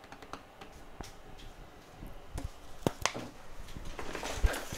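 Scattered clicks and knocks of a person moving about at a workbench, getting busier in the second half, with a sharp knock about three seconds in and a louder one near the end.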